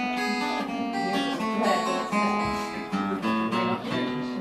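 Acoustic guitar and ukulele strummed together, playing the instrumental introduction to a song, with notes changing every fraction of a second.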